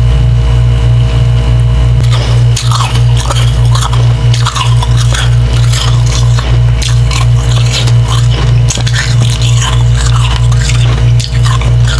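Biting and chewing soft, slushy frost chunks dipped in water, with wet crunching that starts about two seconds in and goes on in irregular crackles. Underneath runs a loud, evenly pulsing low hum.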